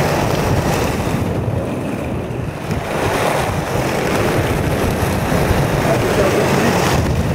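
Wind rushing over the microphone over the rumble of the Buggy Rollin wheeled suit's inline wheels rolling fast down an asphalt road, the hiss dropping briefly about two seconds in.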